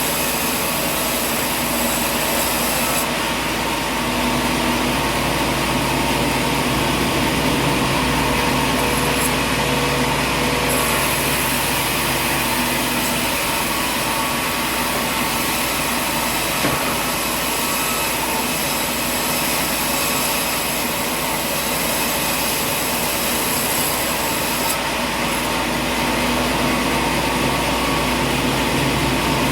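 Steady running machinery, the continuous drone of an engine-driven machine at a constant speed. The highest part of the sound cuts out abruptly about three seconds in and again near the end.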